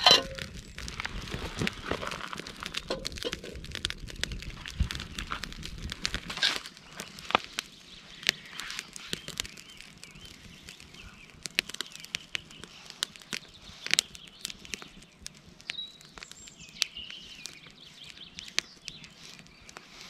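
Small wood campfire crackling, with frequent sharp pops and snaps. A brief loud clatter comes right at the start, and faint bird calls chirp a few times near the end.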